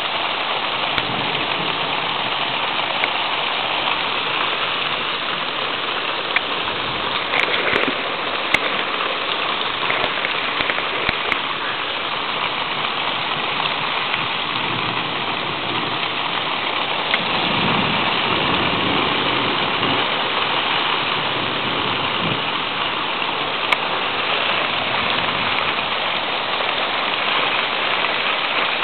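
Steady heavy rain from a thunderstorm downpour, with a few sharp clicks standing out from it.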